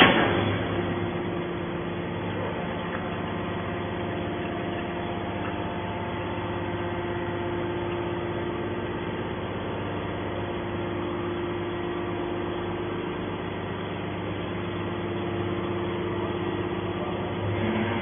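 Hydraulic scrap metal baler running, its hydraulic pump unit humming steadily with a constant tone while the ram slowly pushes a compressed bale of aluminium cans out of the chamber. A short clunk right at the start.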